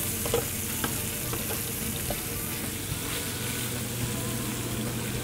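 Small pieces of raw chicken sizzling steadily in hot oil in a sauté pan over a gas flame, with a few faint ticks as they are turned with metal tongs.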